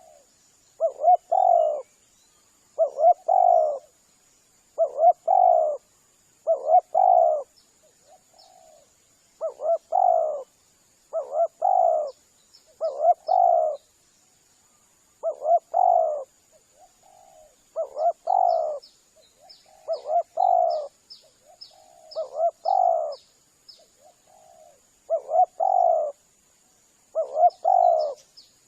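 Spotted dove cooing: a short phrase of several coos repeated about every two seconds, with faint high chirps of small birds and a steady thin high tone behind it.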